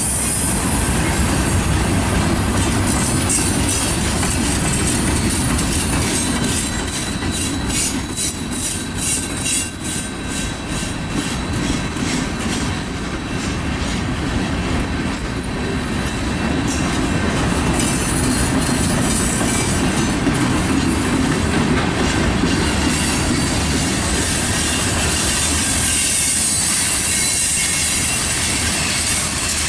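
Freight cars of a manifest train rolling past at close range: a steady rumble of steel wheels on the rails, with a run of evenly spaced wheel clicks over rail joints in the middle.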